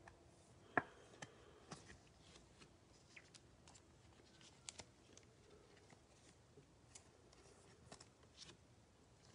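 Near silence with faint scattered clicks and rustles of glossy trading cards being handled in gloved hands, one sharper click about a second in.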